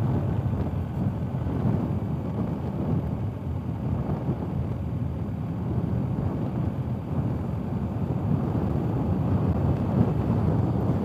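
Wind rushing over the microphone of a BMW R 1250 GS Adventure motorcycle riding a gravel road, with the bike's running and tyre noise underneath as a steady rumble.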